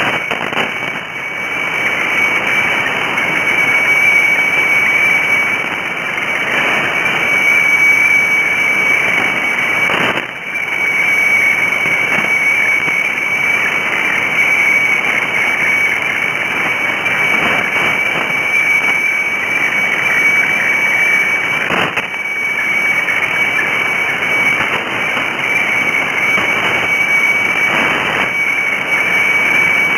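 Shortwave weather-fax (radiofax) signal from Bangkok HSW64 on 7395 kHz heard through a receiver: a steady high tone over loud static hiss, with brief crackles about ten and twenty-two seconds in.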